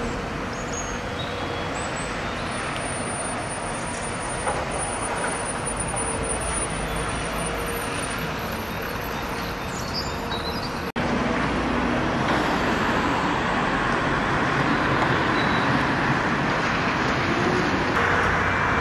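Heavy-haul trucks' diesel engines running, with road traffic noise as a steady wash of sound. It cuts out abruptly about eleven seconds in and comes back slightly louder.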